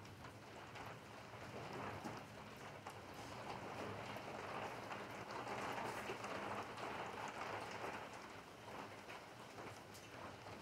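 Steady rainfall: a soft even hiss scattered with sharp drop ticks. It grows a little louder around the middle, then eases.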